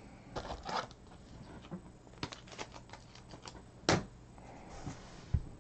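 Quiet, scattered clicks and light rustles of trading cards being handled, with one sharper tap about four seconds in.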